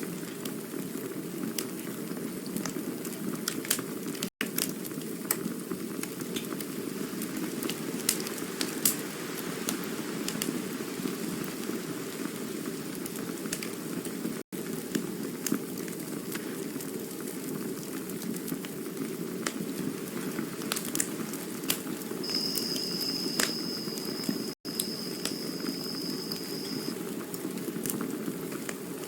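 Campfire burning steadily, with a continuous low rush of flame and frequent sharp crackles and pops of burning wood. A thin high whistle sounds for a few seconds near the end. The sound cuts out for an instant three times, about ten seconds apart.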